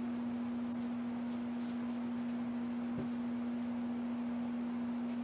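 Steady single-pitch hum, with a faint knock about three seconds in.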